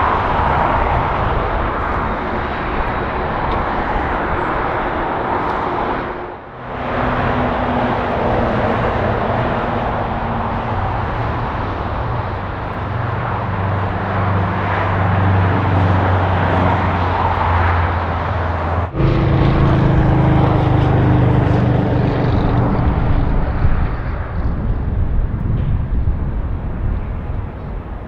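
Jet airliner engines running, heard as a loud steady rush with a low hum under it. The sound breaks off sharply twice, about a quarter and two-thirds of the way through, then returns. It eases somewhat near the end.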